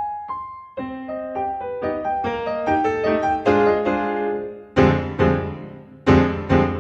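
Piano music: a run of single melody notes climbing over a few chords, then two loud full chords about a second apart, each left to ring and fade.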